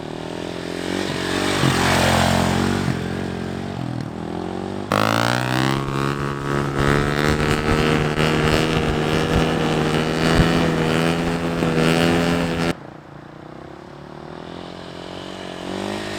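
Dirt bike engines: one bike comes closer and passes, then suddenly a close engine held at steady high revs for about eight seconds, which stops abruptly. Near the end another bike is heard coming closer.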